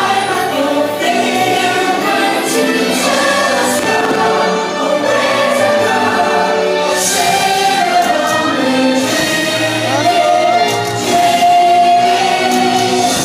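Fireworks show soundtrack over the park loudspeakers: a choir singing long held notes over orchestral music, with firework bursts crackling now and then underneath.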